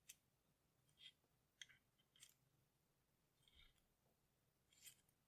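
Near silence with about six faint, short clicks and taps spread through it. They come from a dial thickness gauge being handled, its lever worked and its contact points set against a small square steel bar.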